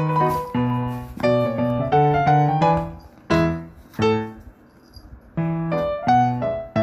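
Background piano music: a bouncy tune of short, separate notes, which drops away briefly about four seconds in before picking up again.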